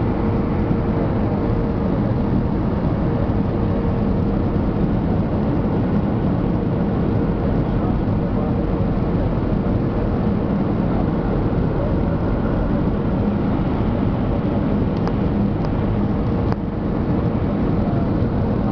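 Airbus A320-200 jet engine running with air rushing past the fuselage, heard as a steady roar inside the passenger cabin.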